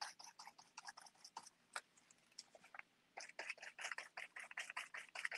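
Sponge-tipped paint applicator dabbing acrylic paint through a plastic stencil onto paper: soft, rapid taps, sparse at first, then denser and louder at about six a second from about three seconds in.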